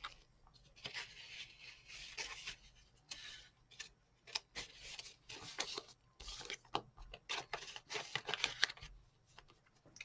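Hands handling small objects: repeated rustling and scraping with sharp clicks scattered through.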